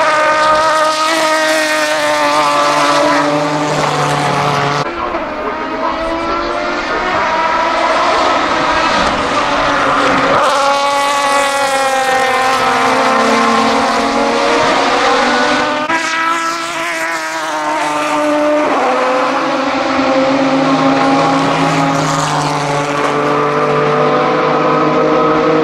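Aston Martin DBR9 GT1 race cars' 6.0-litre naturally aspirated V12 engines at racing speed, passing several times. The engine note rises and falls as the cars accelerate and back off.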